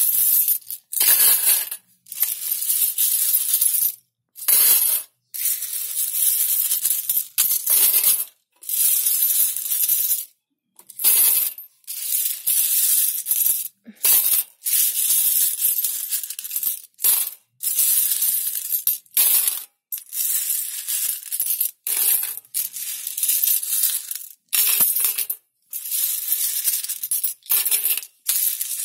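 Loose metal coins clinking and jingling as handfuls are scooped off a tiled floor and dropped into a tin canister. The sound comes in repeated bursts with short pauses between.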